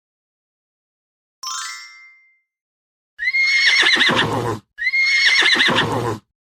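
A short ringing chime, then a horse whinnying twice, each whinny a loud quavering call lasting over a second.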